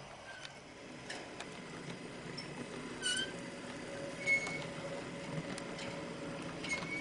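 H0-scale model freight train, hauled by a brass model of the SBB Be 6/8 III Crocodile locomotive, rolling along the track: a low rumble of wheels on rail with a faint steady motor hum and light clicks, growing louder about a second in. Short high squeaks come three times, about three, four and a half, and seven seconds in.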